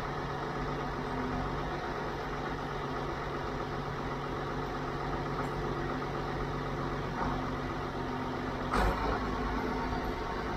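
Farm machinery running with a steady low hum, interrupted by one sudden loud clunk near the end, after which the hum changes.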